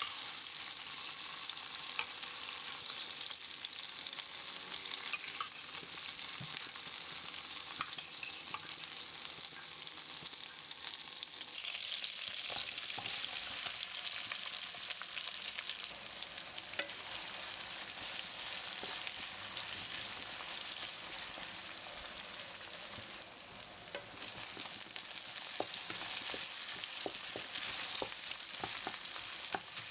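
Food frying in a hot pan, a steady sizzle that grows brighter about twelve seconds in, with scattered clicks of a utensil stirring against the pan.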